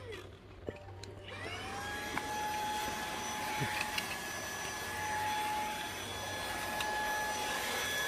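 Dreame V11 cordless stick vacuum's high-speed digital motor spinning up with a rising whine a little over a second in, then running steadily: a high whine over the rush of air through the extension hose and brush nozzle.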